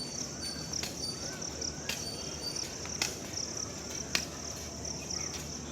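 Steady high-pitched insect chirping, with a sharp knock about once a second.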